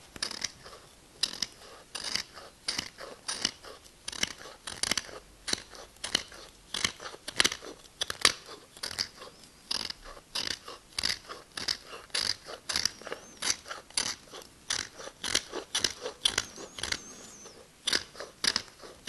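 A Japanese chisel (nomi) scraping wood off the end of another nomi's wooden handle in short, crisp strokes, about two a second, paring it down so the steel ferrule can be set lower.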